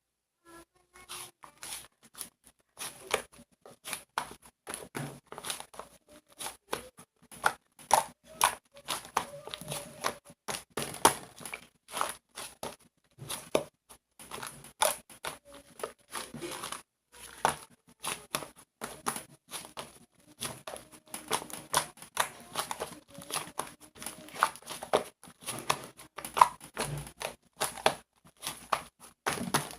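Slime being squeezed and worked by hand, giving a steady run of irregular wet clicks and pops.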